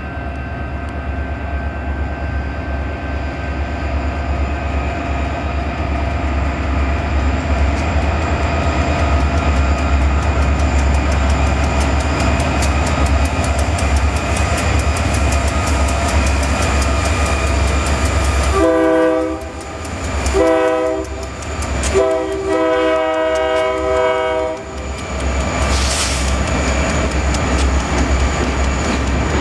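Two Southern Pacific diesel-electric freight locomotives rumbling past at slow speed, slowing as they pull a string of freight cars through the station. The multi-chime air horn sounds two short blasts and then one long blast, about 19 to 25 seconds in.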